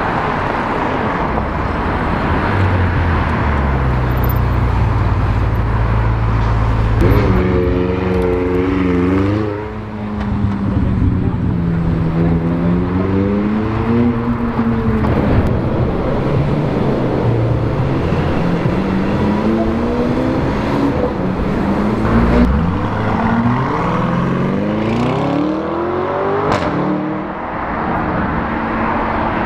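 Supercar engines revving and accelerating past in city traffic, the engine note rising and falling in several pulls, over a steady road-noise background.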